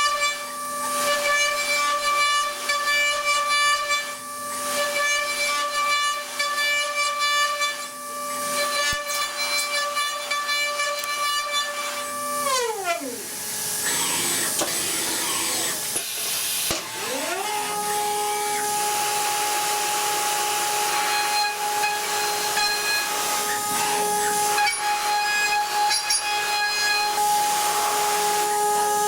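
DATRON high-speed milling machine's spindle whining at a steady high pitch over a hiss. About twelve seconds in the pitch drops sharply as the spindle spins down. Some four seconds later it spins back up to a steady, somewhat lower pitch.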